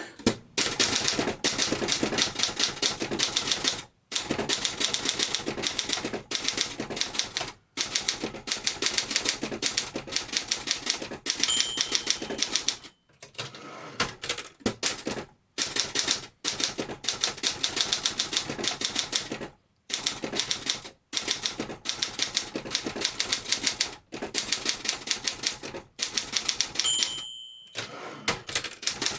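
1959 Olympia SG-1 manual standard typewriter being typed on fast: runs of rapid type-bar strikes with short pauses between them. The margin bell rings twice, once about a third of the way in and once near the end.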